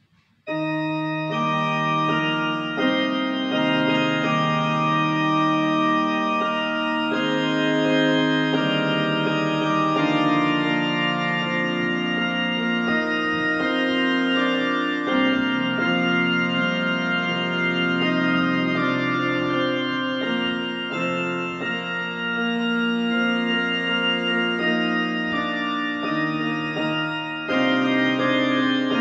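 Yamaha portable electronic keyboard playing a hymn on an organ voice: held chords under a melody, the notes sustaining without dying away. It starts about half a second in.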